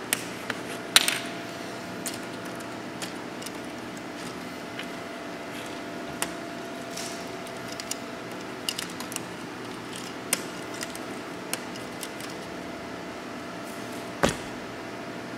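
Plastic K'nex pieces clicking and knocking as they are handled and snapped into place while a chain tensioner is fitted to a chain-driven K'nex mechanism: scattered sharp clicks, the loudest about a second in and just after fourteen seconds, over a faint steady hum.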